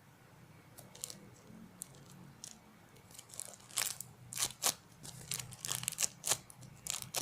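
Homemade squishy toy squeezed and kneaded in the hands, crinkling and crackling. A few faint crinkles at first, then from about three seconds in a busy run of sharp crackles.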